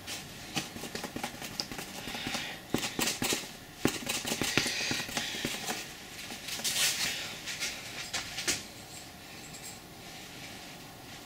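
Foam sponge dauber dabbing paint onto a piece of cardboard while the cardboard is handled: irregular soft taps, scuffs and rustles that die down after about nine seconds.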